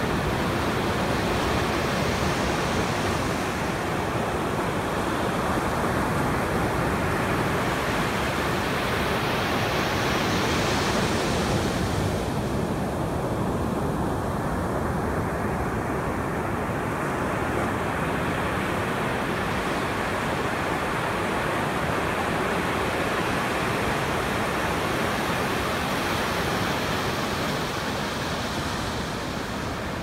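Ocean surf breaking and washing up a sandy beach: a steady rush of noise, with one wave breaking brighter and louder about ten seconds in.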